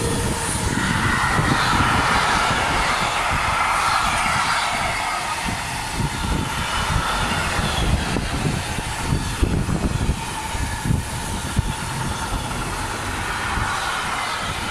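Intermodal freight train of container and tank-container flat wagons rolling past at speed: a steady rush of wheel and rail noise, with a few sharper clacks around the middle.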